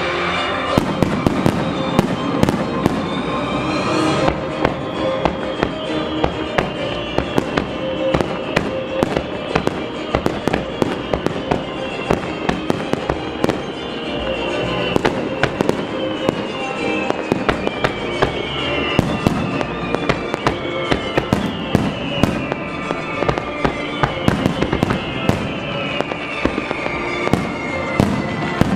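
Aerial fireworks shells launching and bursting in rapid succession, with many sharp reports and crackle. Music plays underneath, with a string of high tones that slide downward every couple of seconds.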